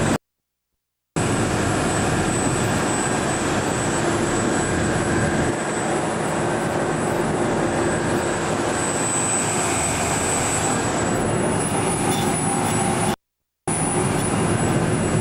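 Steady drone of the ferry's engines mixed with wind rushing over the microphone on the open deck. The sound cuts out to silence twice, for about a second near the start and briefly near the end.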